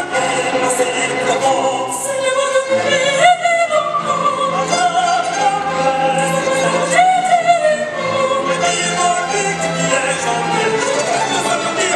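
Operatic singing with string orchestra accompaniment, the voices holding long, wavering notes.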